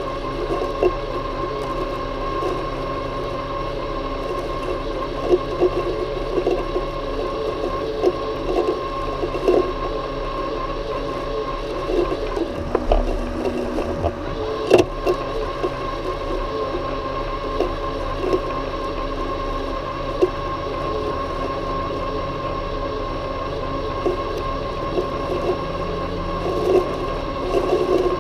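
Worx Landroid M robotic lawnmower running, its electric motors giving a steady whine, with scattered light knocks and rustles as it rolls over the grass.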